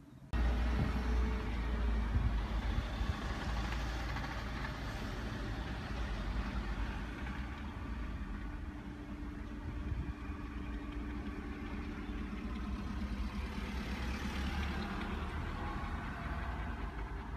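A car running, heard from inside its cabin: steady engine and road noise with a strong low rumble, starting abruptly just after the beginning.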